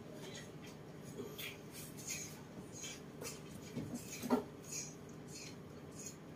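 Pig-tailed macaque moving about on a bed: faint scattered rustles and clicks, with a couple of soft knocks about four seconds in, over a low steady room hum.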